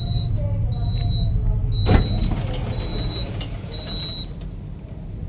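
Inside a moving passenger train carriage: a steady low running rumble, with a short high electronic beep repeating about once a second, five times, and one sharp knock about two seconds in.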